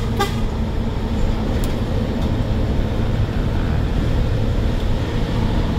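Truck's diesel engine running steadily under road noise. A short horn toot sounds right at the start.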